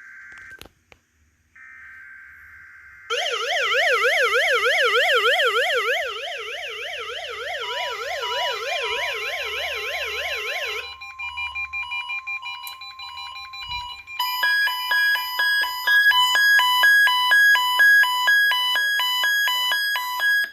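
NOAA Weather Radio's SAME digital header comes through twice in the first three seconds as short buzzy data bursts. Then several weather radio receivers sound their test alerts. A fast warbling siren tone runs from about three seconds in to about eleven, a steady tone and quick beeps join in near the middle, and loud pulsing multi-tone beeping takes over from about two-thirds through.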